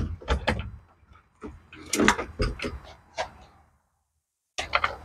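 Folded Aventon Sinch fat-tyre e-bike being pulled out of an RV storage compartment: a series of knocks, rattles and scrapes as the frame and wheels bump against the compartment, with a cluster of clunks about two seconds in.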